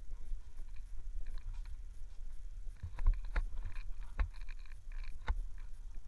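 Wind buffeting an action camera's microphone, heard as a steady low rumble, with a few sharp knocks between about three and five seconds in.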